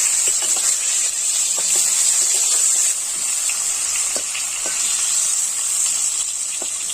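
Hot oil frying in a kadai: a steady sizzle with a few faint crackles.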